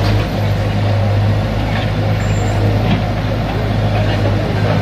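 An engine running steadily, with a constant low hum under a dense rumble.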